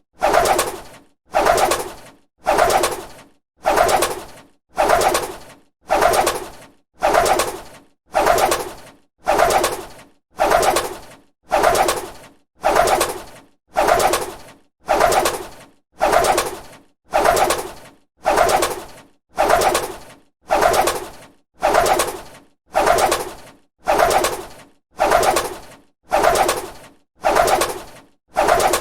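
A bird's wings flapping, repeated in an even rhythm of about three flaps every two seconds; each flap starts suddenly and fades quickly.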